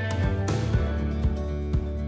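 Background music with a steady beat of about two hits a second and guitar, with a brief bright swell near the start.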